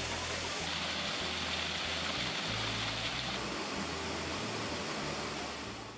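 The Triberg Waterfall's falling water, a steady rushing roar, with low background-music notes changing underneath. It fades out near the end.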